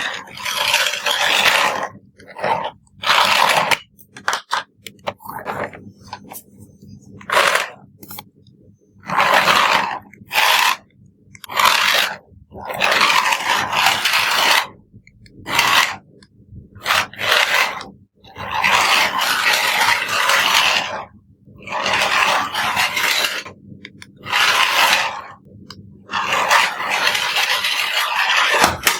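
Toy remote-control car run in short bursts: repeated rushes of noisy motor and wheel sound, each lasting half a second to two seconds, with short gaps between them.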